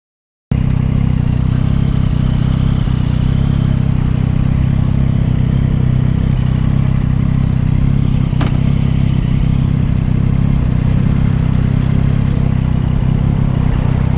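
Motorcycle engine idling steadily at a stop, cutting in suddenly about half a second in. There is one sharp click about eight and a half seconds in.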